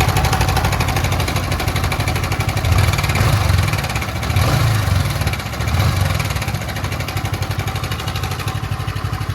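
Yamaha MT-15 version 1's 155 cc single-cylinder engine running with a bad rattle ('khadkhad'), briefly louder around three and six seconds in. The rattle comes from a very loose, worn-out timing chain; the tensioner is fine.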